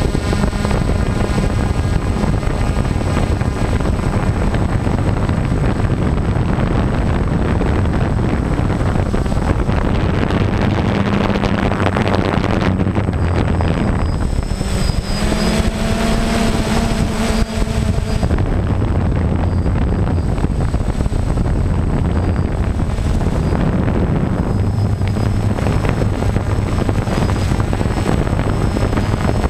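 DJI Phantom quadcopter's motors and propellers whirring steadily, heard from the GoPro mounted beneath it, with a low hum that drifts a little in pitch as it flies. The sound changes briefly about halfway through.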